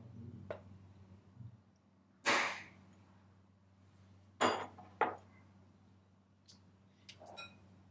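Kitchen dishes knocking and clinking: a loud knock about two seconds in, two sharp ringing clinks of a small ceramic ramekin against a glass mixing bowl around four and a half and five seconds, and a few light clicks near the end.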